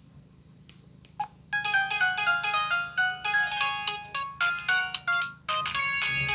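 A ringtone melody played through a Samsung Propel (SGH-A767) phone's speaker: after a short quiet gap with a few faint clicks, a tune of quick single electronic notes starts about a second and a half in, pauses briefly near the end, and carries on.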